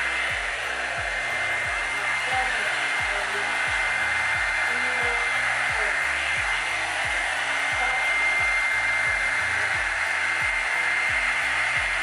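Revlon One-Step hair dryer and styler brush blowing on its low setting: a steady rush of air with a steady high motor whine. Faint background music with a beat underneath.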